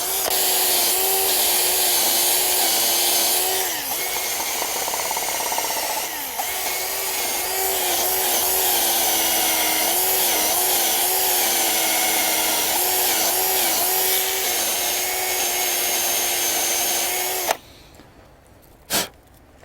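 Cordless drill spinning a brass wire brush, scrubbing loose rust out of the 17 mm hex socket of a front axle bolt; the motor's pitch sags and recovers as the brush bites, dips twice briefly early on, and cuts off suddenly near the end. A single sharp click follows.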